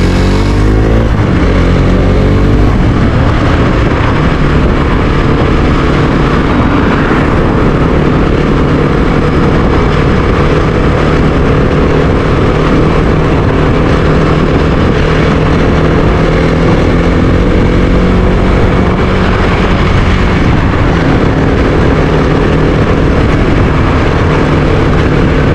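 Suzuki GSX-S125's single-cylinder engine accelerating through a couple of gears in the first few seconds, then running steadily at cruising speed. Heavy wind noise on the helmet-mounted camera's microphone runs with it.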